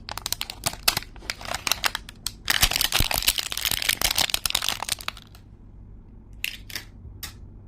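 Toy packaging crinkling and rustling as it is handled and opened: a dense run of crackles for about five seconds, then a few separate clicks near the end.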